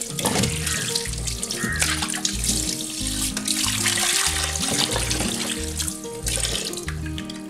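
Tap water running into a clay pot in a sink, with hands splashing and rubbing pieces of fish in the water to wash them. Background music with a steady beat plays underneath.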